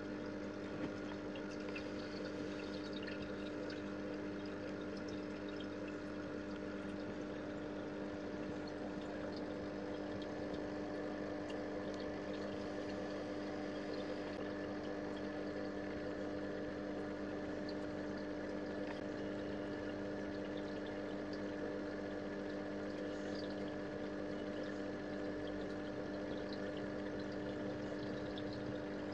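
Small pump running with a steady hum over moving water in a tub where live shrimp are being purged of mud.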